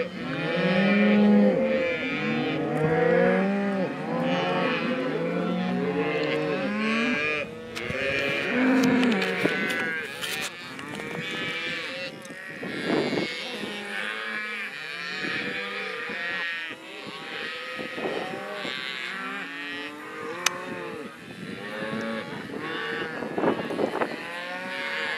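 A herd of cattle mooing, many calls overlapping one another continuously as the herd is moved.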